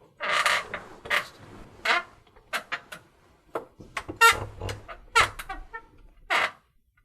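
Springs of a cheap motel bed squeaking: about a dozen irregular squeaks, some short and some drawn out, as if someone is shifting or bouncing on the mattress.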